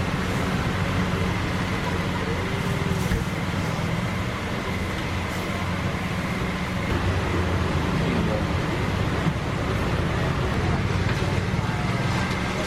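Steady roadside street-stall noise: traffic and the stall's cooking, with a constant low hum and faint voices behind.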